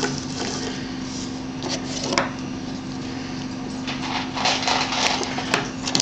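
Small Victorinox pocketknives being handled, opened and set down on a wooden tabletop: light rustling with a sharp click about two seconds in and several more clicks near the end.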